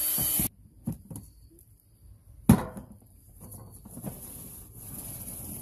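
A cordless drill's motor runs briefly and cuts off abruptly about half a second in. Then comes hard plastic knocking, with a few light knocks and one sharp loud thump about two and a half seconds in, as the drilled plastic lid is handled and set on the tub.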